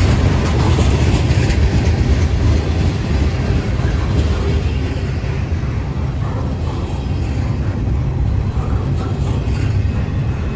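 Freight train cars rolling past close by: a steady, loud rumble of steel wheels on rail as tank cars give way to double-stack container well cars. The higher hiss eases about four seconds in.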